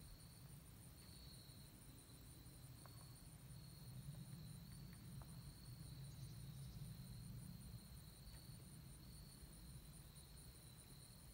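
Near silence: faint insects chirping steadily in a high, pulsing trill, over a soft low rumble.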